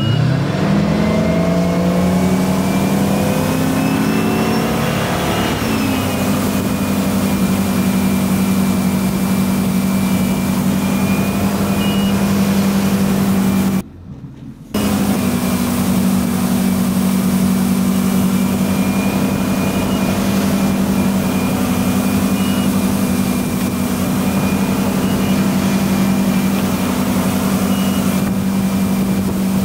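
Waterski tow boat's engine accelerating, rising in pitch for about six seconds, then holding steady at speed while towing a skier. The sound drops out briefly about halfway through.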